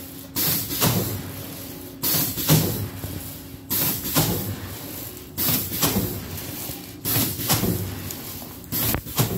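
Hookah aluminium foil rewinding machine working through its cycle: a sudden noisy burst that fades over about a second, repeating about every 1.7 seconds, six times, over a steady low machine hum.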